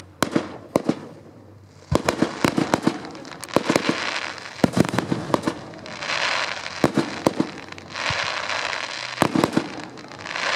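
Fireworks display: aerial shells launching and bursting, many sharp bangs in quick succession, with hissing, crackling stretches between the bursts.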